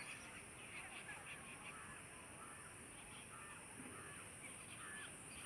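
Faint, scattered calls of birds, a few short calls a second, over a steady high-pitched hiss.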